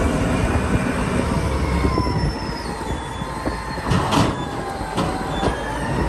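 Caterpillar 992C wheel loader's diesel engine running under load, a steady low rumble with high hydraulic whines over it, while the raised bucket dumps earth into a truck. A short louder rush about four seconds in.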